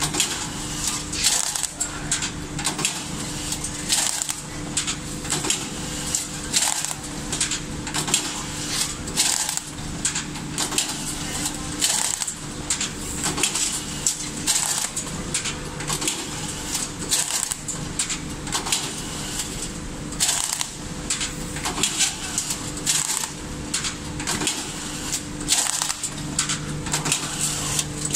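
Signode semi-automatic strapping machine running: a steady motor hum under repeated sharp clicks and clacks as it feeds, tensions, seals and cuts strap around cardboard boxes. The hum fades about twelve seconds in and comes back strongly near the end.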